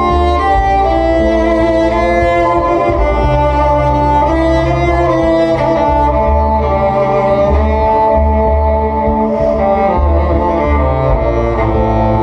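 NS Design CR6 six-string electric cello bowed over its own looped layers: long held melody notes above a low bass line that changes note about once a second, several cello parts sounding at once.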